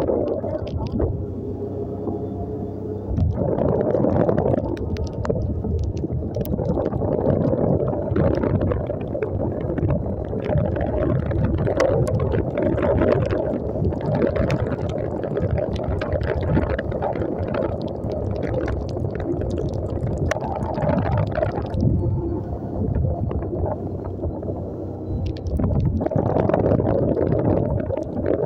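Wind buffeting and rumbling on the microphone of a moving motorcycle, over the engine running and tyres on a wet road.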